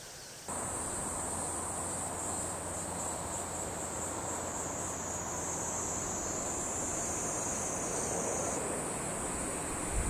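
A steady, high-pitched drone of insects singing, over a low, even background rumble. It starts abruptly about half a second in.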